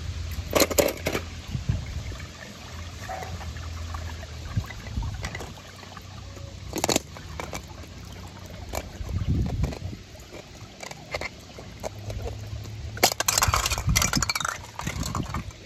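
Water sloshing and splashing, broken by sharp knocks and clicks of small toy cars: a pair about a second in, one near seven seconds, and a quick cluster near the end.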